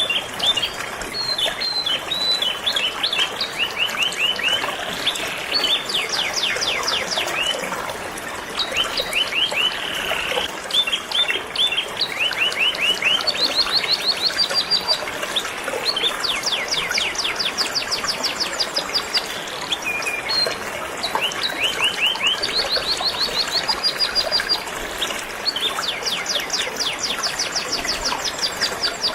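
Canaries singing continuously in long, rapid trills of repeated high notes, one phrase after another, over a steady rush of flowing river water.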